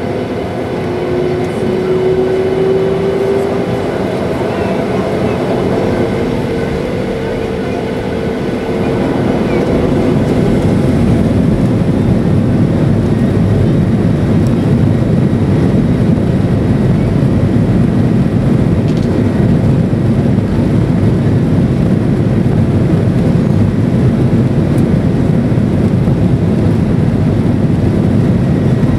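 Airbus A320's jet engines heard from inside the cabin, spooling up for takeoff with a slowly rising whine over the first several seconds. Then, about nine seconds in, a louder, steady rush of engine noise as the plane speeds down the runway on its takeoff roll.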